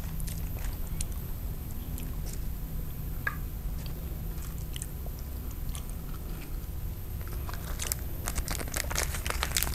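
Soft rice paper (bánh tráng phơi sương) and fresh herbs being handled and rolled into a wrap: sparse faint clicks and crinkles that grow denser near the end, over a steady low hum.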